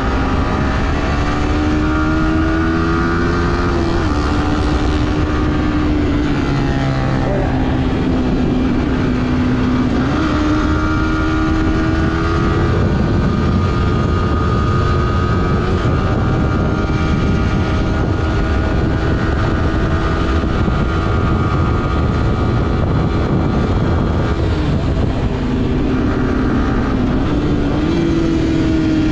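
Yamaha sport motorcycle's engine running at road speed, its note stepping down and back up a few times as the throttle and gears change, over steady wind noise on the microphone.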